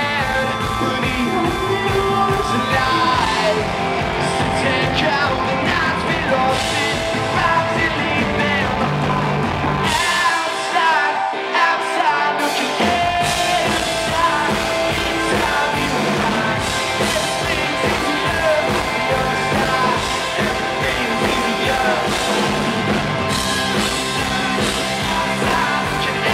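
Rock music with singing. The bass and low end drop out for about two seconds near the middle, then come back in.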